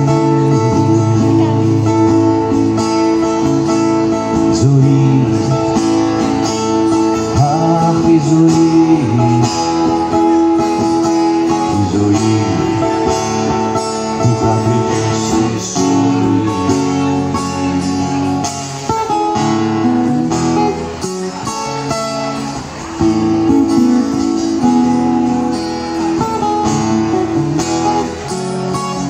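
Live music from two acoustic guitars, strummed and picked together in a song.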